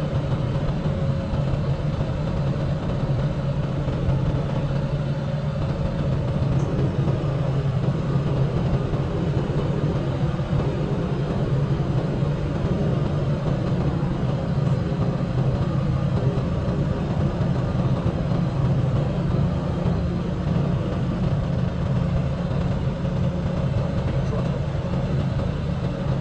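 Semi truck's Cummins X15 inline-six diesel running steadily at cruise, a constant low engine drone mixed with road noise.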